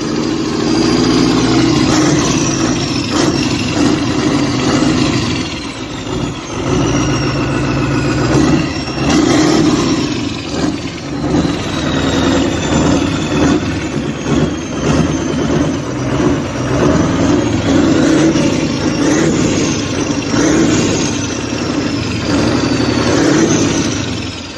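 Scania LK 140's 14-litre V8 diesel running with no exhaust fitted. It is revved again and again, the throttle blipped up and dropped back, with the revs rising and falling several times a few seconds apart.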